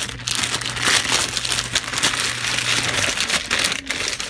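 Thin plastic packaging bag crinkling and rustling as it is handled and a new cable is pulled out of it.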